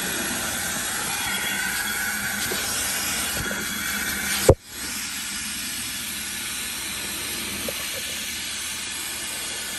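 Vacuum running steadily, sucking pet hair out of car floor carpet through a corrugated hose and crevice nozzle. There is one sharp click about four and a half seconds in.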